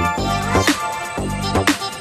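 Background electronic music with a steady beat, drum hits about twice a second.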